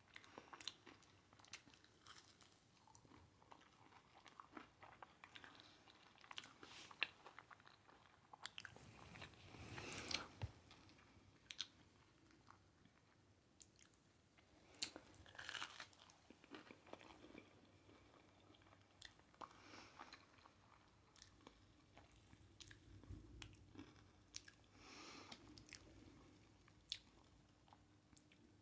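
Close-miked chewing and crunching of crispy breaded fried pickles coated in hot Cheetos: many small crackles and bites, with a few louder crunches.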